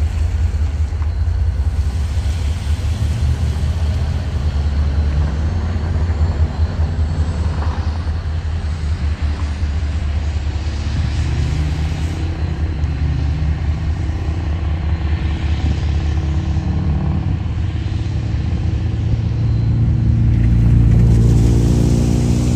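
Steady low vehicle engine rumble, with the engine note climbing in pitch and getting a little louder near the end.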